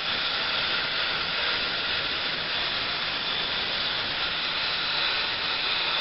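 Steam hissing steadily from the CNJ 113 steam locomotive as it vents steam.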